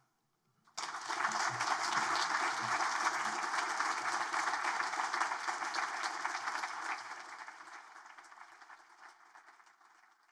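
Audience applauding, starting about a second in, holding steady, then gradually dying away near the end.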